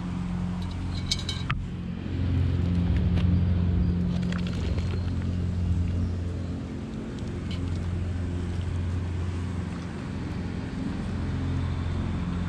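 A motor running with a steady low hum, louder from about two seconds in. A sharp click comes about a second and a half in, with faint clatter as vegetables slide off a paper plate into the cast-iron Dutch oven.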